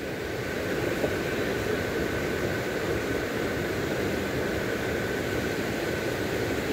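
Steady rushing of a mountain stream cascading over granite boulders.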